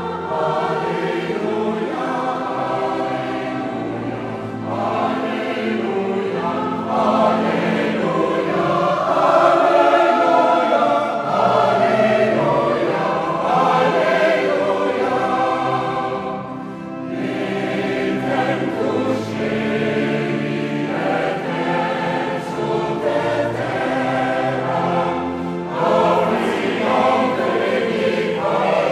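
Mixed choir of women's and men's voices singing choral music in sustained, full chords, easing briefly a little past halfway before carrying on.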